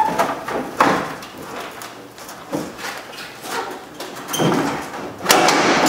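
Plastic grille and trim panel of a Chevy Colorado rattling and scraping as it is pried loose from its retaining clips: several short scrapes and knocks, the loudest near the end.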